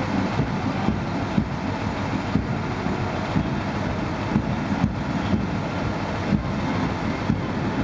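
Boots of a large column of marching soldiers striking the pavement in step, a heavy regular stamping about twice a second over a dense shuffling rumble.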